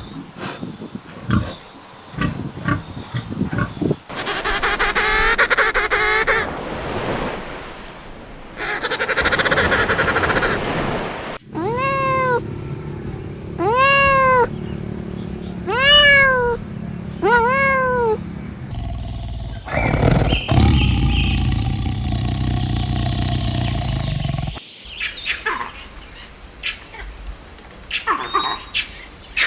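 A run of different farm animal calls, one after another. Near the middle come four separate arching calls about two seconds apart, each rising and then falling in pitch.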